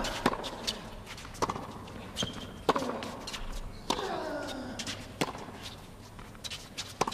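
Tennis rally on a hard court: racket strikes on the ball about every second and a quarter, softer ball bounces between them, and players grunting with a falling pitch on several of the shots. A short shoe squeak is heard about two seconds in.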